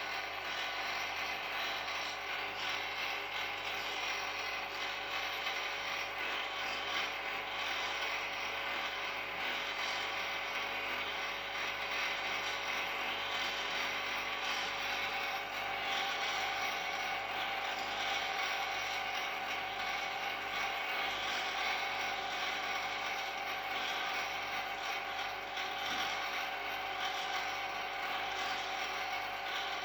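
AR-500 antenna rotator's motor and gear train running steadily as it turns the antenna back toward 0 degrees: a continuous, even mechanical running sound with a steady hum.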